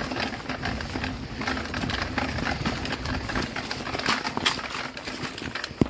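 Mountain bike rolling over hard, stony dirt and dry leaves, its tyres crunching and the bike rattling in a dense run of irregular knocks and clicks.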